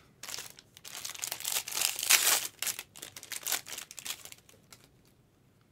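Plastic trading-card packaging crinkling and tearing as it is opened: a run of rustling bursts, loudest about two seconds in, that die away near the end.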